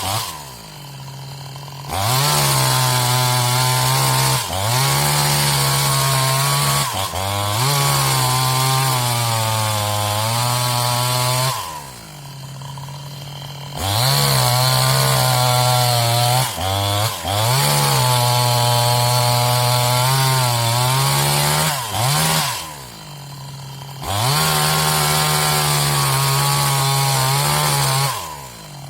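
New West 628 two-stroke chainsaw cutting into a tree: held at full throttle for long stretches, its pitch sagging and recovering as the chain bites into the wood, then dropping back to idle about four times.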